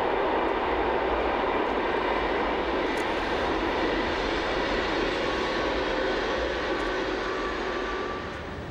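Silver Metropolitan express train with its class 101 electric locomotive passing at speed: a steady rushing of wheels on rails and air, which fades a little near the end.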